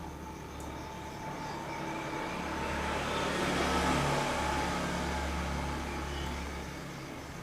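A road vehicle passing by, its noise swelling to a peak about halfway through and then fading away.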